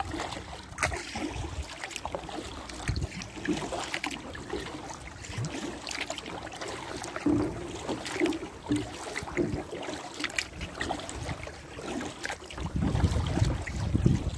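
Water splashing and dripping around a kayak, with many irregular light knocks and splashes. Wind buffets the microphone near the end.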